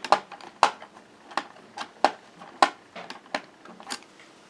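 A series of sharp little clicks, about two a second and unevenly spaced, from a screwdriver turning a screw out of a laptop's base. The loudest two come in the first second.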